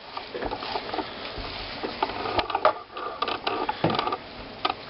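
Steaks sizzling and spitting in hot vegetable oil in a cast iron skillet. A steady frying hiss starts abruptly and carries many small pops and crackles.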